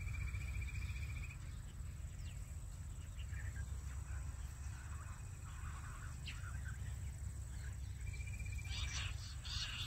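Jungle bush quail calls: a high trilling note that stops about a second in and comes back near the end, with faint short chirps in between, over a steady low rumble.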